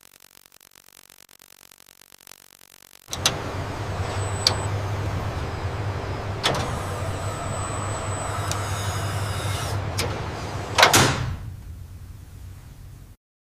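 Assembly-line machinery: a steady motor hum with several sharp metallic clicks, starting suddenly. A brief louder sweep comes near the end, then the hum fades and cuts off.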